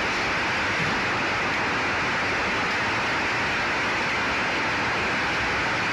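Steady hiss of noise that does not change, with no distinct knocks, voices or other events in it.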